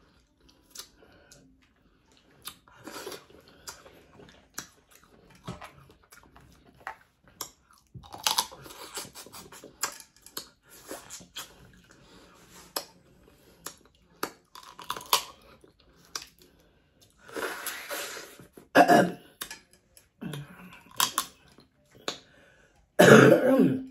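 Close-miked eating of Dungeness crab: scattered clicks and crunches with chewing. Loud coughs break in twice, near the end, from eating too fast.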